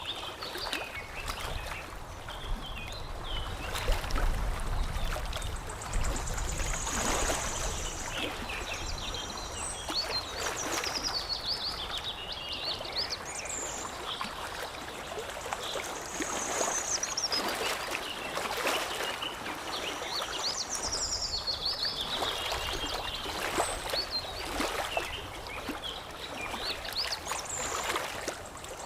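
Water lapping and trickling with small irregular splashes, while birds chirp in quick, high phrases that recur every few seconds.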